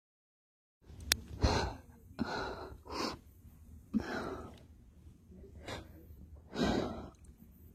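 A person's sharp, wheezy gasps, five in an irregular run with quieter breathing between them, the first the loudest: the catching breaths that build toward a sneeze.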